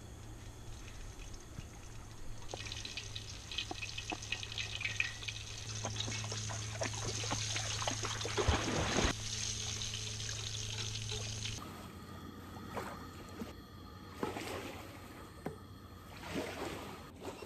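Flour-dredged fish fillets frying in hot oil in a cast-iron skillet on a camping stove: a crackling sizzle that starts a couple of seconds in and grows louder, then eases off to a quieter, patchier sizzle in the later seconds.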